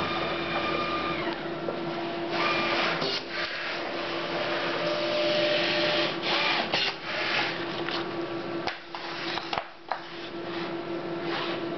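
Memjet SpeedStar3000 inkjet printer running with a steady hum as a printed sheet feeds out, a low hum and some higher tones dropping away about a second in. Paper rustles several times as the printed sheets are handled.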